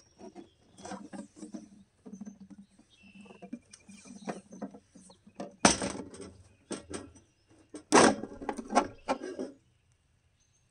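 Black adhesive tape being handled and pressed onto a 3D-printed plastic box, with scratchy rustling throughout and two loud rips of tape pulled off the roll, about halfway through and again about two-thirds through.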